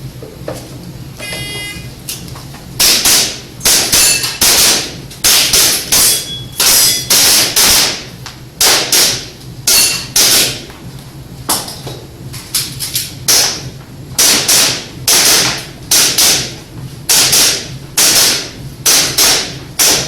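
Electronic shot timer's start beep about a second in, then a long string of rapid airsoft pistol shots fired in quick groups as the shooter runs an IPSC practical-shooting course.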